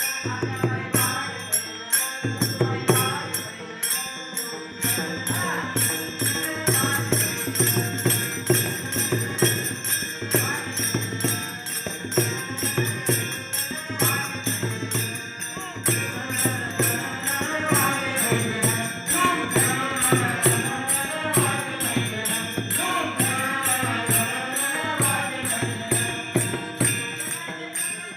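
Devotional bhajan music: metallic hand percussion and drum keep a quick, steady beat, and about halfway through a wavering melodic line, like a singing voice, rises above it.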